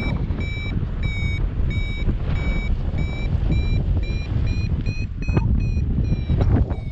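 Paragliding variometer sounding its climb tone: short high beeps about two a second, their pitch creeping up a little through the middle before the beeping stops near the end, a sign the glider is climbing in lift. Steady wind rush on the microphone underneath.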